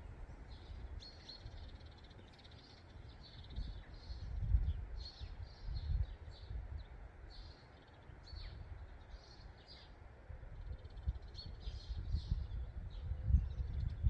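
Spring birdsong: several small birds singing and calling in short, high, overlapping phrases. Gusts of wind rumble on the microphone now and then, and these are the loudest moments.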